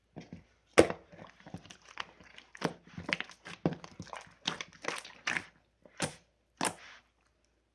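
Irregular crisp crunches and crackles close to the microphone, about a dozen sharp snaps over several seconds that stop near the end.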